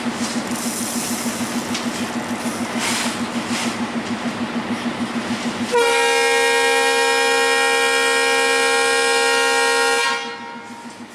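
Diesel locomotive engine running with a steady, regularly pulsing hum over the rumble of the train. About six seconds in, the locomotive's air horn sounds one long chord of several tones for about four seconds, then cuts off.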